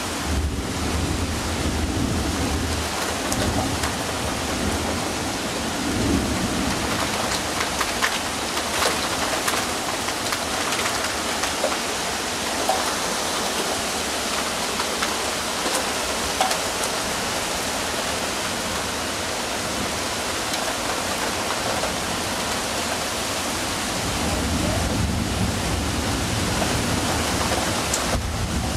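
Heavy rain falling steadily in a thunderstorm, with low thunder rumbling at the start, briefly about six seconds in, and again in the last few seconds. Scattered sharp ticks stand out from the rain.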